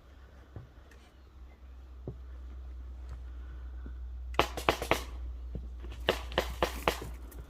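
Two quick runs of sharp snaps, several a second, about four and a half seconds in and again near the end, like an airsoft gun firing short bursts, over a steady low rumble.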